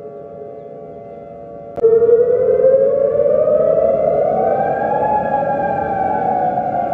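Civil defense warning siren starting suddenly about two seconds in, its pitch climbing for about three seconds, then levelling off and slowly falling. Before it starts, a faint steady tone.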